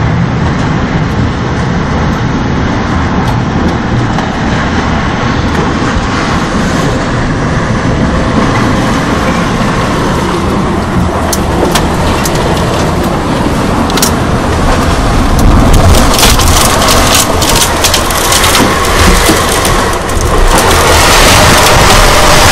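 Tornado wind and driving rain at the storm's peak of about F3 strength, a loud dense rush that grows louder toward the end. A flurry of sharp knocks and rattles joins it about two-thirds of the way in.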